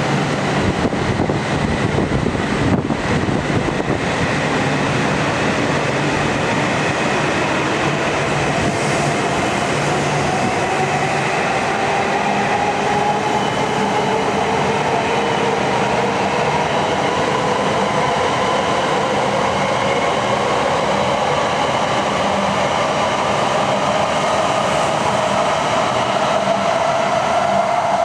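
Coupled Tohoku Shinkansen train of E6 Komachi and E5 Hayabusa cars rolling past the platform with wheel and running noise. Its motor whine rises slowly and steadily in pitch as the train gathers speed.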